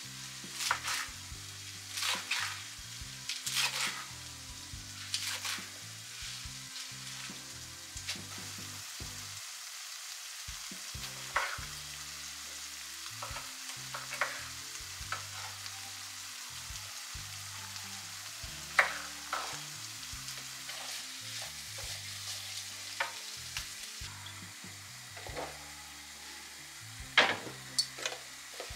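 Chef's knife cutting salad greens and cherry tomatoes on a wooden cutting board, in sharp irregular strikes, most closely spaced in the first few seconds. Under it runs a steady sizzle of food frying in a pan.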